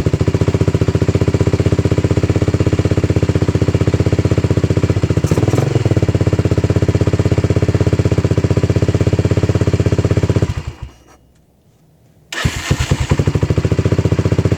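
Late-1980s ATV's small carbureted engine running with a fast, even putter after its cold-weather hard-start fix. It cuts out about ten and a half seconds in, then comes back abruptly and runs briefly again.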